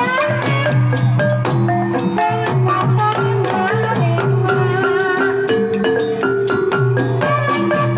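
Javanese gamelan playing a Banyumasan tayub piece: kendang hand-drum strokes over struck bronze kettle gongs and mallet instruments, in a steady dense rhythm.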